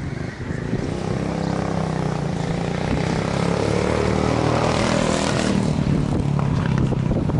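Nissan 350Z drift car's engine running loudly as the car rolls slowly past, its note climbing a little through the middle and easing off near the end.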